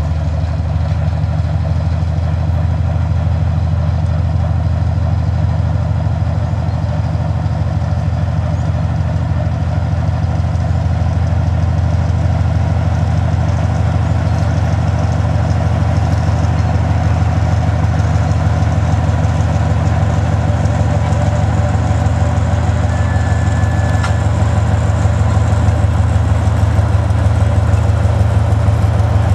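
The 10D100M2 two-stroke opposed-piston diesel engines of a 2TE10U locomotive working under load as it hauls a freight train slowly past, a deep steady beat that grows a little louder toward the end.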